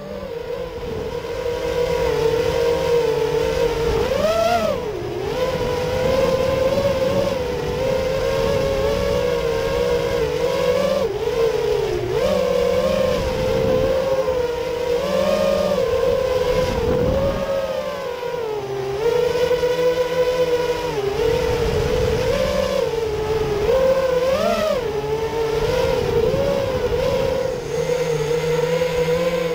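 Small multirotor drone's motors and propellers running with a steady whine, the pitch wavering and briefly swooping up and down as the throttle changes.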